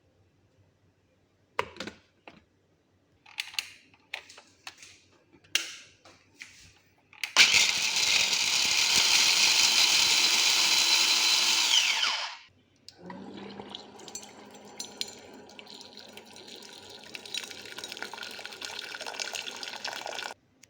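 A few light knocks and clatter, then a small electric motor runs loudly for about five seconds with a whine and winds down, its pitch falling. A quieter steady rushing with scattered light clicks follows until just before the end.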